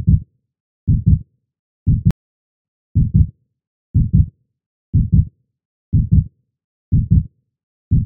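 Heartbeat sound effect: low, muffled lub-dub double thumps, about one heartbeat a second, with silence between the beats.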